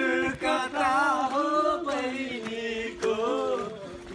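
Singing, with long held notes that slide up and down in pitch.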